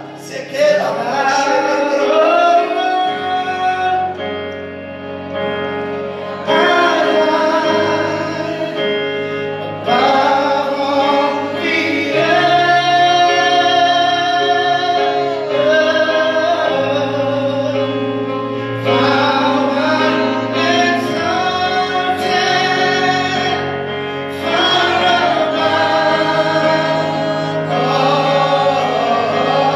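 Live gospel worship song: voices singing long, held phrases over sustained keyboard chords.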